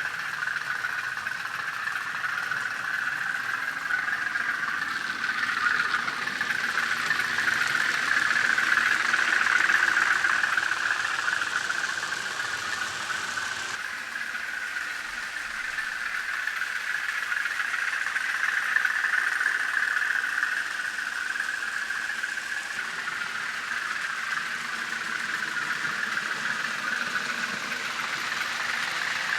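N gauge model diesel locomotive running, giving a steady engine sound concentrated in the upper middle range. The sound shifts about fourteen seconds in.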